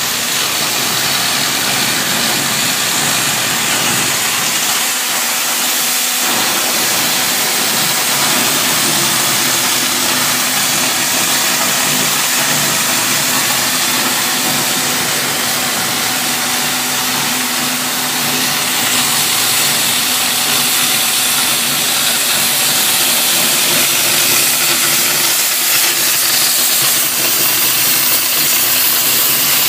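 Cutting torch of a CNC cutting machine burning through steel plate: a loud, steady hiss that gets slightly brighter about two-thirds of the way in.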